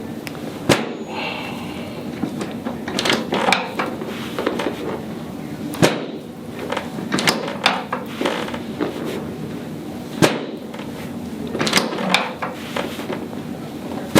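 Chiropractic drop-table section snapping down under the adjuster's thrust, a sharp clack repeated several times a few seconds apart, during drop adjustments to rotate the sacrum back toward the midline.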